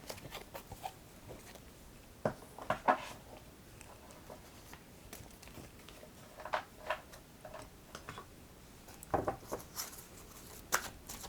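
Cards being handled on a table: soft, irregular taps, flicks and rustles, a few at a time with pauses between.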